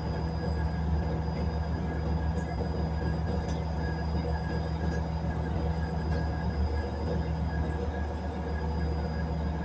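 Cabin noise inside a diesel railbus under way: a steady low engine drone with a faint high whine above it, and a few light clicks.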